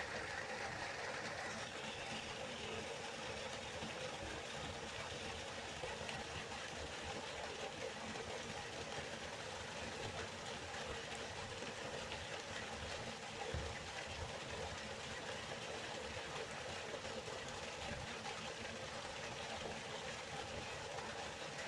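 A river flowing, a steady rushing of water with no change in level.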